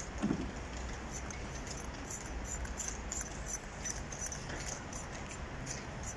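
Light, irregular metallic clicking and rustling as a metal grooming comb is worked through a Caucasian shepherd dog's thick coat, over steady outdoor background noise. A brief low thump just after the start.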